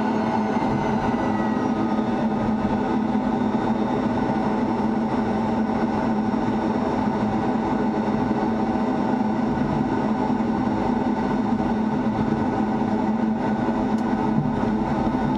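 Steady jet engine and airflow noise heard inside an F-16 fighter's cockpit as the jet rolls along the runway, with a high whine falling slightly in pitch over the first couple of seconds.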